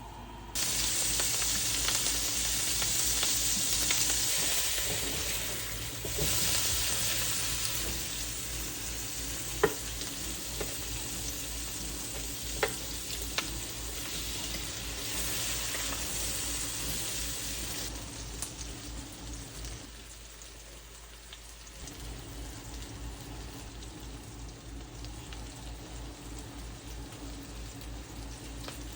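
Food sizzling in a hot frying pan, a dense hiss that starts suddenly and stays loud, then settles lower for the last ten seconds or so. A few sharp clicks, like a utensil against the pan, sound midway.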